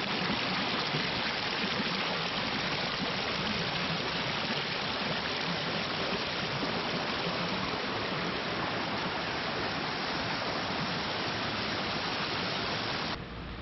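Small mountain stream rushing and splashing over rocks in little cascades, a steady sound of running water. It cuts off abruptly near the end.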